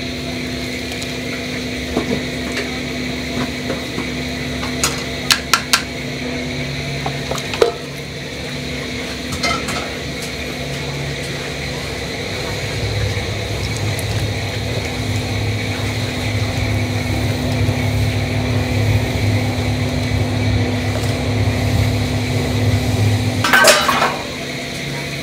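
Kitchen utensils clinking and knocking against a steel stockpot over a steady kitchen hum: a quick run of four clinks about five seconds in, a single knock a little later, and a longer clatter near the end. The low hum grows louder from about halfway through.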